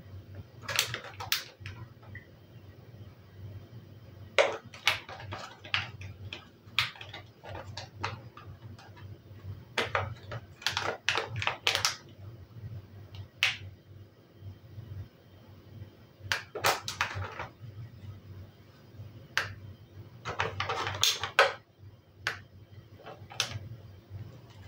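Irregular clicks and crinkles of a thin clear plastic food tray being handled, as diced lardons are picked out of it by hand and scattered onto dough, over a faint steady low hum.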